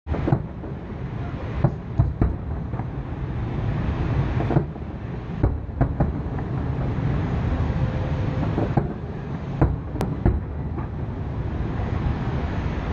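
Aerial firework shells bursting in a series of sharp bangs, about a dozen, coming irregularly and often in quick groups of two or three, over a continuous low rumble.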